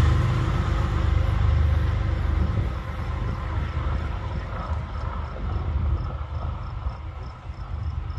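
Freight train's low rumble fading away as it pulls off into the distance.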